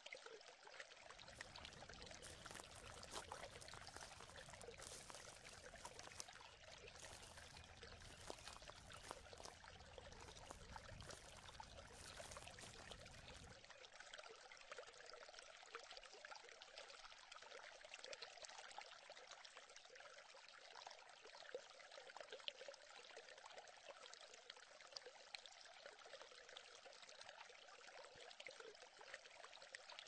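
Faint, steady trickle of a small woodland stream, with a low rumble underneath for roughly the first half.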